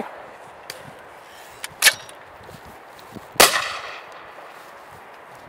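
Two shotgun shots at clay targets, about a second and a half apart. The second has a longer echoing tail.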